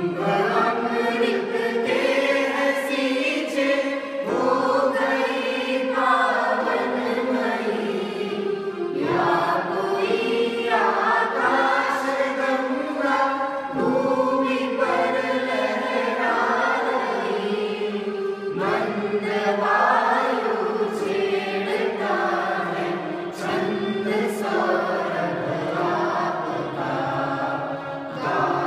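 A small mixed group of male and female voices singing a song together, accompanied by an electronic keyboard. The singing comes in phrases of a few seconds, with short breaks between them.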